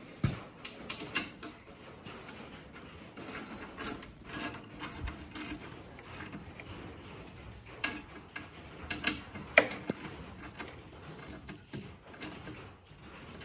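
Hand socket ratchet clicking in irregular short runs as 10 mm bolts are snugged up, with a few sharper metal clacks past the middle.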